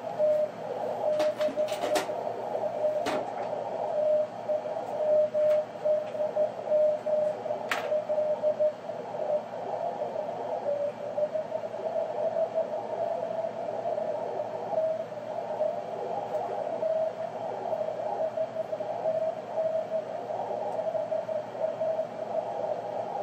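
Receiver audio from a 432 MHz moonbounce (EME) station: a weak signal echoed off the Moon, heard as a single tone that wavers and breaks up in steady, narrow-band receiver hiss. A few sharp clicks come in the first eight seconds.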